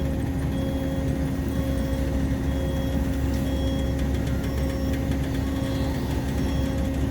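Steady hum of a large engine or machine running at a constant speed, with a low rumble beneath an even tone.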